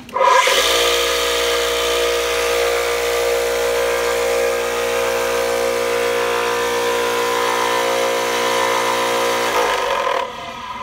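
Clarke American OBS-18 orbital floor sander switched on, its electric motor running with a loud, steady hum. It is switched off about nine and a half seconds in and winds down.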